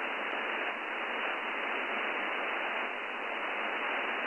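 Audio from a FUNcube Dongle Pro Plus software-defined radio receiving upper sideband on the 17-metre amateur band: a steady, thin-sounding hiss of band noise, trimmed at the top and bottom by the receiver's narrow voice filter.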